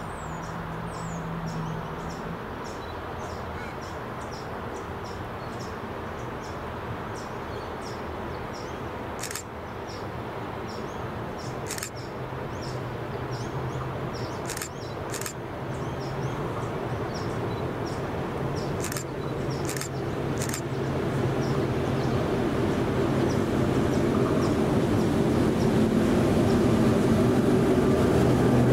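S-class diesel-electric locomotive approaching at the head of a train, its engine rumble growing steadily louder as it nears. Small birds chirp throughout, with a few sharp clicks in the middle.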